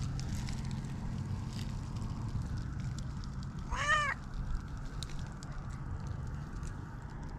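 A cat gives one short meow, rising and then falling in pitch, about four seconds in. A steady low hum and faint rustling clicks run underneath.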